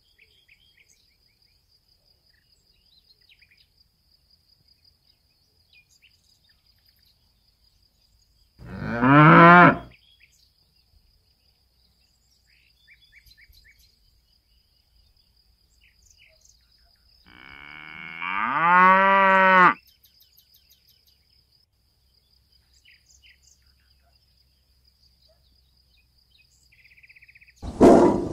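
Cattle mooing twice, about nine seconds in and again near eighteen seconds, the second moo longer, about two and a half seconds, against a faint steady high insect trill. Right at the end a loud, rough sound begins.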